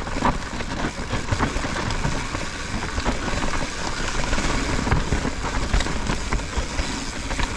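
Mountain bike descending a dirt forest trail at speed: steady rushing noise of tyres on loose dirt and leaves, with many small clicks and rattles from the bike over bumps.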